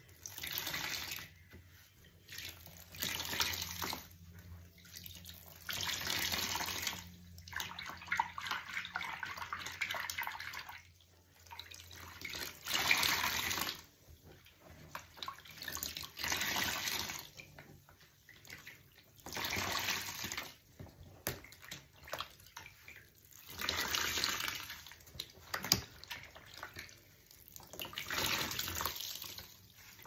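Water-soaked sponges without soap suds being squeezed by hand, each squeeze sending a gush of water splashing into a tub of water below. The gushes come about ten times, every two to four seconds, with quieter dripping between them.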